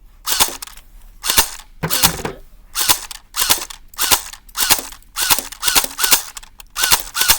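Airsoft guns firing single shots at a steady pace, about a dozen sharp cracks roughly half a second apart.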